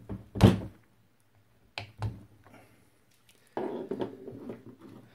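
Two sharp knocks, the first and louder one about half a second in, as a Mahle wrist pin clip tool is pushed against a piston to press a wrist pin circlip into its groove; the clip has not seated. Near the end comes a stretch of rustling handling noise as needle-nose pliers are picked up from the bench.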